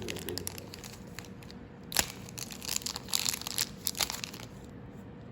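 Plastic and cardboard blind-box packaging crinkling and crackling as it is handled, with a sharp click about two seconds in and a cluster of crackles a second later.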